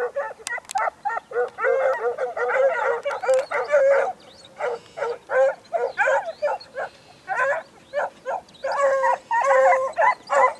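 Several hunting dogs baying on a hare's scent trail, their calls coming quickly and overlapping, with short lulls about four and seven seconds in.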